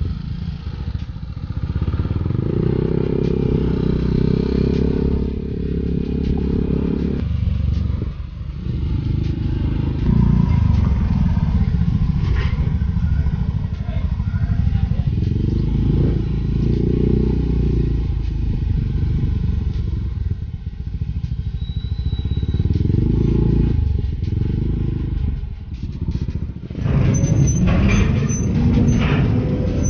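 Motor scooter riding heard from the rider's own camera: the engine running with a steady low rumble of wind and road noise. It slows and rolls among other motorbikes and cars, and about three seconds before the end a burst of rattling clatter starts as bikes move onto a steel ferry ramp.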